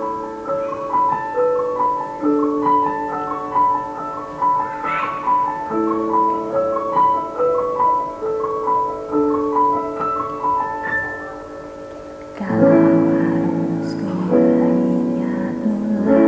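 Piano intro of a karaoke backing track: a repeating pattern of quick broken-chord notes up high over held chords. About twelve seconds in, a fuller accompaniment with a bass line comes in and the music gets louder.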